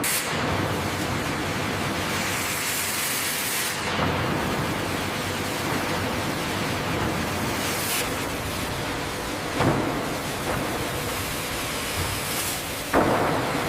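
A dense, steady rushing noise, with short louder surges about four, eight, ten and thirteen seconds in.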